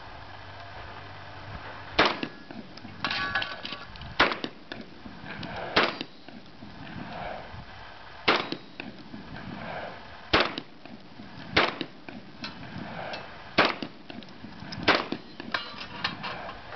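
Shotgun firing eight shots at steel targets, spaced about one to two and a half seconds apart, with smaller knocks and clanks between the shots.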